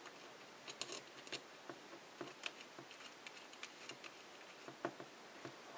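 Faint, irregular small clicks and rubs of fingers handling the metal tip at the front of a butane soldering iron.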